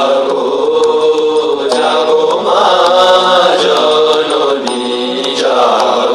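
Devotional chanting set to music, a voice singing long, sliding phrases throughout.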